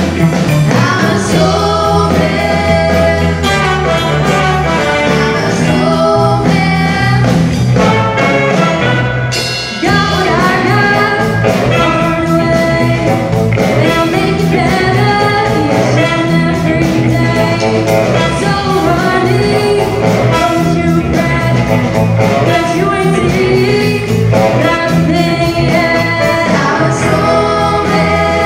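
Live rock band song: female lead vocals sung into microphones over a drum kit and electric guitars, with a brief drop in the band just before the ten-second mark.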